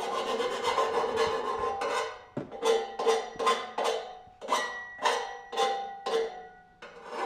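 Hand file rasping across the cut end of an exhaust pipe to take the burrs off before clamping. Quick, close strokes slow after about two seconds to separate strokes about two a second.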